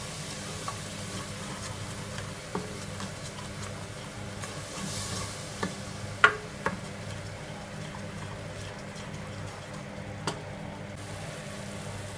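Wooden spoon stirring a thick yogurt-and-spice masala frying in a pressure cooker, kept moving so the yogurt does not split. There is a low steady sizzle, with a few sharp knocks of the spoon against the pot, the loudest about six seconds in.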